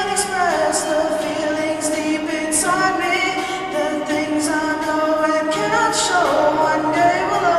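A choir singing, with long held notes that move to new pitches every one to two seconds and crisp 's' sounds at the word endings.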